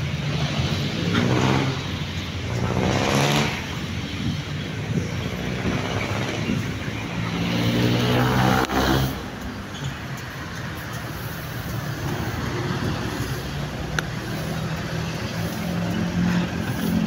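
Motor vehicles passing, their engine hum rising and fading twice, about a second in and again around the middle, over steady traffic noise.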